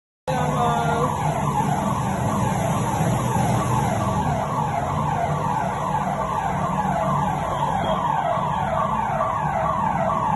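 A siren sounding in rapid falling sweeps, about two a second, over a low steady hum; it starts abruptly about a third of a second in.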